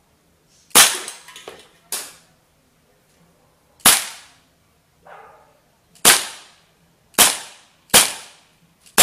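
Red Alert gas-cartridge (CO2) air pistol firing BBs: about six sharp shots spaced one to three seconds apart, with a fainter crack about a second after the first.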